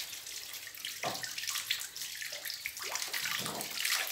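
Water running steadily with a hissing rush, swelling briefly a couple of times.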